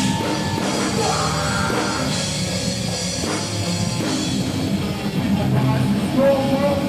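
Thrash metal band playing live: distorted electric guitar, bass and drum kit, with a held, rising note near the end.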